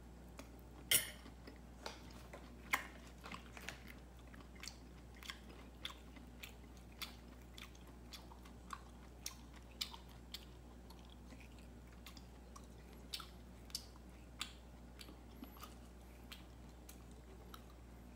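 A cat eating from a small ceramic dish and chewing: irregular sharp crunching clicks about once or twice a second, the loudest about a second in, thinning out toward the end.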